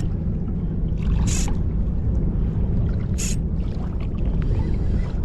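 Steady low rumble of wind buffeting the microphone over shallow seawater, with two short hissing bursts about a second and three seconds in.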